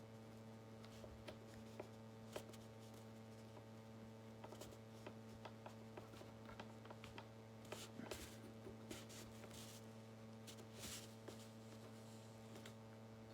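Faint clicks, taps and light scrapes of small parts being handled and fitted by hand, over a steady electrical hum.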